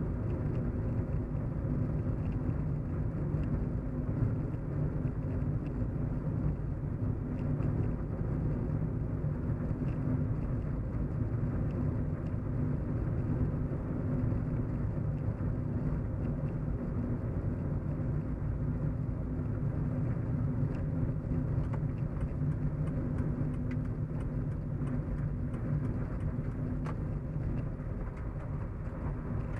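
Steady low road hum and rumble of a moving car, with engine and tyre noise at an even cruising pace and a faint steady drone.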